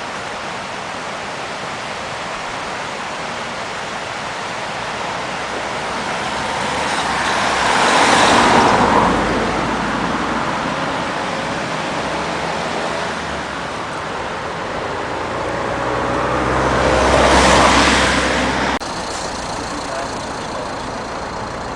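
Steady traffic and road noise with two vehicles passing close by, one about eight seconds in and one about seventeen seconds in, each swelling and fading. The noise drops suddenly to a steadier, quieter level near the end.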